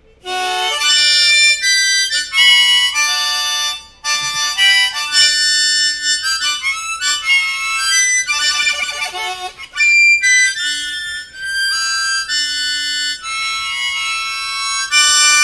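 East Top diatonic blues harmonica in the key of D blown hard at full volume: loud chords and single notes changing quickly, with a couple of short breaks for breath.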